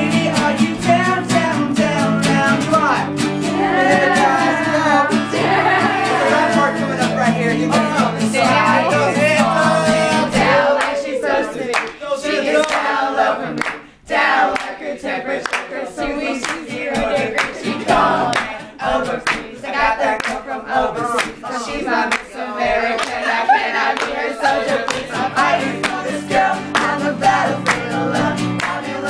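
A group of young men singing together to two strummed acoustic guitars. About a third of the way in the guitars drop out and the singing carries on over hand claps, and the guitars come back near the end.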